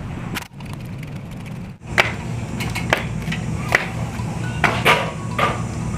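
Background music with a steady bass line, over sharp scrapes and taps of a steel trowel on brick and mortar about once a second.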